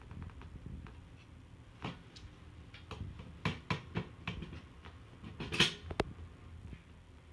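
A cat batting and flinging a small toy across a hardwood floor: a run of quick clicks and skittering scrapes, with a louder, longer scrape a little past the middle.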